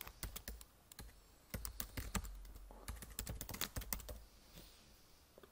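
Computer keyboard being typed on: quiet, quick keystroke clicks in a few short runs, entering a line of text.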